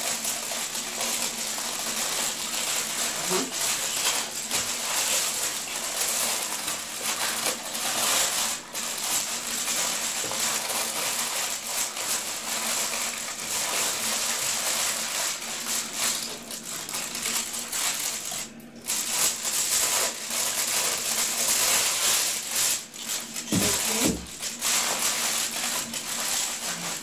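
Aluminium foil crinkling without a break as it is wrapped and rolled tightly around a filled plastic bag.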